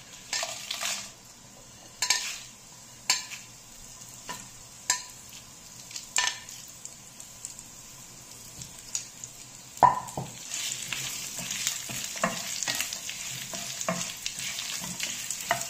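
Whole spices tipped into a frying pan with a little oil, a few sharp taps as they go in, then a loud knock about ten seconds in. After that the spices sizzle steadily as they roast, with a spatula stirring and knocking against the pan.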